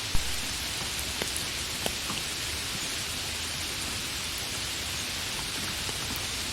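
Steady rain falling, an even hiss, with a few louder single drops; the sharpest comes just after the start.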